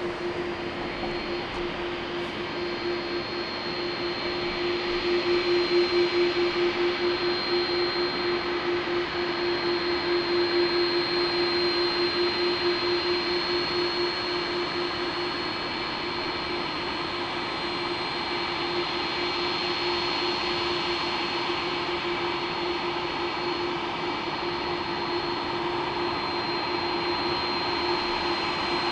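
An Airbus A330-300's twin General Electric CF6 turbofans running at taxi idle: a steady jet whine with a constant low hum and a thin high whistle. It grows louder about five seconds in, as the airliner swings round to face the microphone, then eases slightly.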